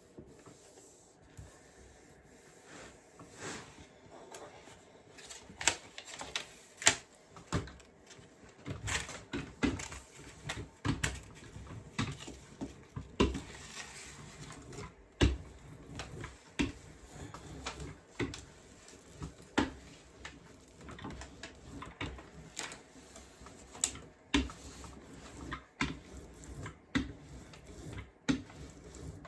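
Sticker paper being handled: its backing peeled off and the sheet laid and pressed down onto a board, with irregular paper rustles, crackles and light taps.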